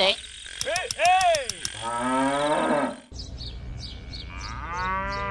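Cartoon sound effects: a cow mooing twice, the first moo rising in pitch, the second a long moo over birds chirping. A short silly vocal sound comes just before the first moo.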